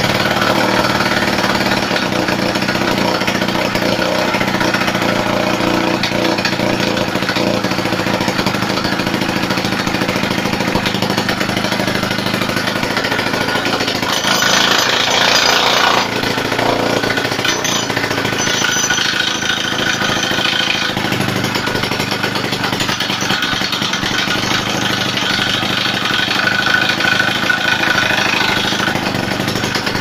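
Pionjär petrol rock drill's two-stroke engine running steadily and hammering its chisel into a concrete slab. The machine is running again after 20 years standing unused. A louder hiss lasts about two seconds in the middle.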